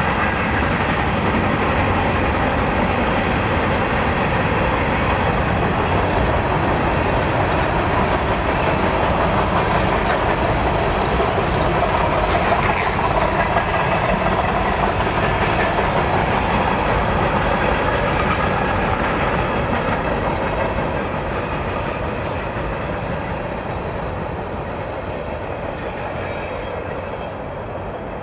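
Kansas City Southern freight train's cars rolling past on steel rails, a steady loud rolling noise that fades over the last several seconds as the train moves away.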